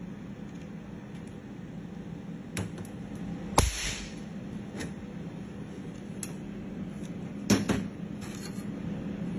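Scattered sharp metal knocks and clanks over a steady low hum, the loudest about three and a half seconds in with a brief hiss after it, and another pair near eight seconds.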